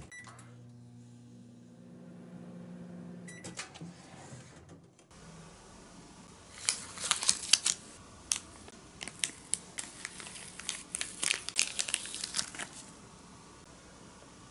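Microwave oven running with a steady low hum, with a short electronic beep as it starts and another about three seconds later. Then, from about six seconds in, irregular crinkling and crackling as a thin plastic sheet is peeled off a freshly microwaved pancake.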